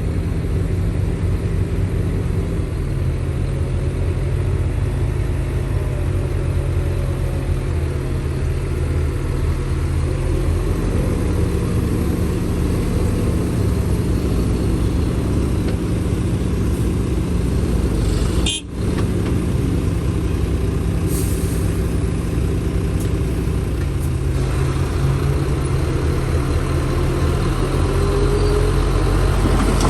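Heavy diesel engine of earthmoving machinery running steadily. Its pitch steps down, up and down again a few times, and the sound drops out briefly about two-thirds of the way through.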